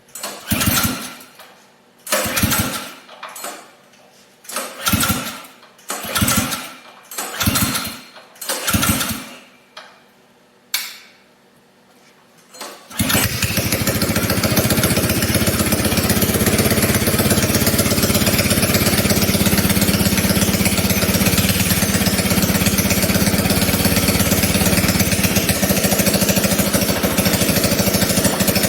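Small single-cylinder engine on a pocket bike being pull-started: about a dozen short, separate cranking bursts over roughly eleven seconds before it catches about thirteen seconds in. After that it runs steadily at idle.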